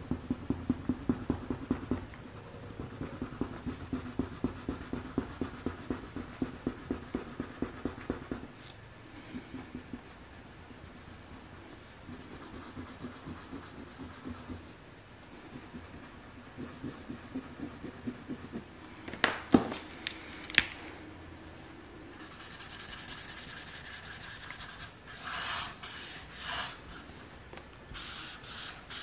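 Crayon scribbling back and forth on paper in quick strokes, about four a second. Two sharp clicks come about twenty seconds in, and in the last seconds a marker tip rubs over the paper with a higher, hissier sound.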